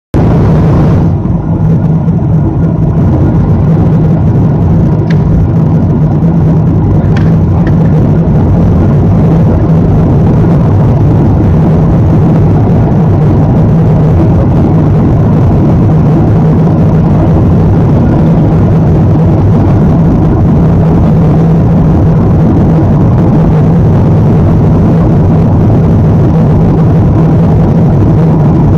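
Steady, loud cabin noise inside a jet airliner: a low rumble of engines and airflow that holds even throughout.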